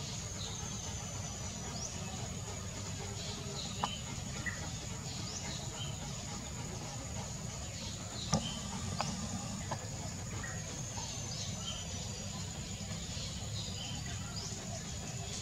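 Red-whiskered bulbuls giving short, high chirps scattered throughout, over a steady high-pitched insect drone and a low rumble. Two sharp clicks come about four and eight seconds in.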